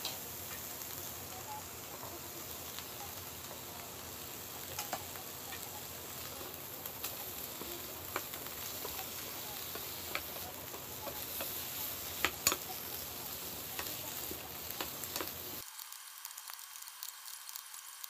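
Vegetables sizzling in a frying pan as chunks of daikon, carrot and konnyaku are tipped in, with sharp clicks as pieces land. Near the end the sound suddenly turns thinner, losing its low end.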